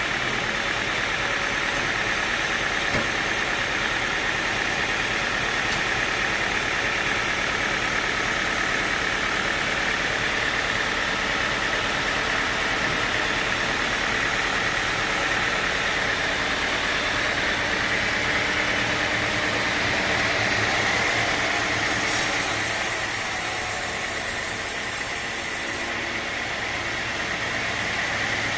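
Sawmill machinery running steadily with an even mechanical drone, with a brighter hiss added for a few seconds about three quarters of the way through.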